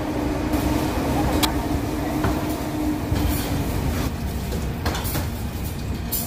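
Steady low machinery rumble of a commercial kitchen, with a hum that fades out about halfway and a few sharp clicks and clatters.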